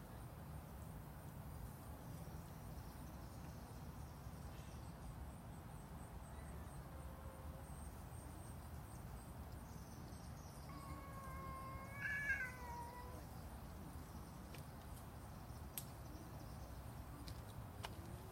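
A cat gives one long, drawn-out meow about two-thirds of the way in, falling in pitch at the end, over a steady low background rumble.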